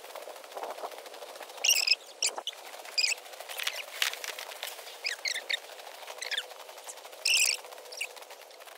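Footsteps crunching through snow, with a small bird calling in short, high chirps four times.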